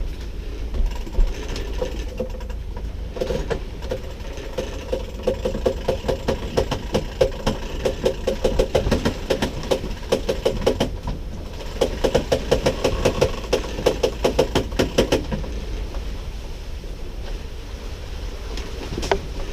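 Sailboat winch ratchet clicking rapidly as it is cranked, in two long runs with a short pause in between, over the steady noise of the boat.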